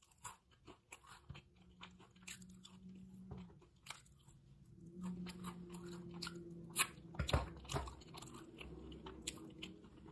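Close-up chewing of a mouthful of food, with wet smacks and crunchy clicks. A low, steady hummed 'mmm' runs under the chewing from about a second in and again from about five seconds in.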